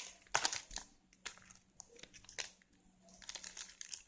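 Plastic toy-pack wrapper crinkling in short, irregular bursts as it is handled and opened.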